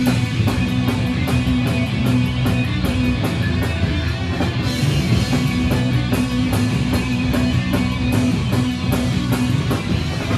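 Live hardcore punk band playing an instrumental passage: distorted electric guitar and bass chugging steady notes under fast, even drumming with crashing cymbals.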